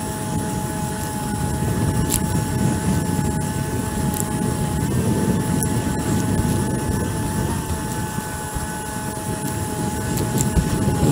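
Jet ski engine running at speed with a steady whine that shifts slightly in pitch now and then, over a constant rush of wind and water.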